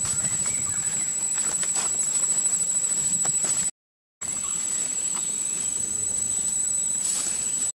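Insects shrilling in a steady, high-pitched drone with a slight pulse, as in a tropical forest. The sound cuts out completely for about half a second near the middle.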